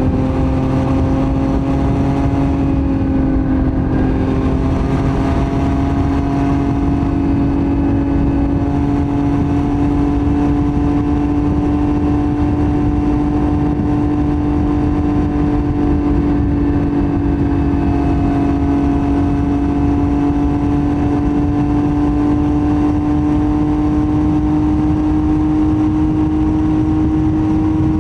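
Yamaha MT-09's CP3 inline three-cylinder engine running through a Roadsitalia titanium full exhaust, held at a steady cruise with its note rising slowly and gently throughout.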